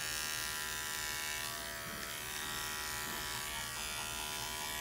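Wahl Arco cordless clipper running with a steady buzz, its 3/8-inch guard comb gliding through a poodle's leg coat as it clips.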